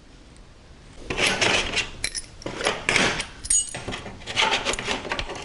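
Small steel wrenches clinking and rattling against one another as they are picked through by hand, starting about a second in, with a few brief metallic rings.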